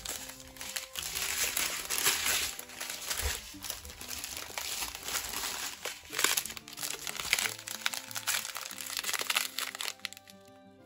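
Strips of small plastic zip bags of diamond-painting drills crinkling and rustling as they are handled, dying down near the end. Soft background music underneath.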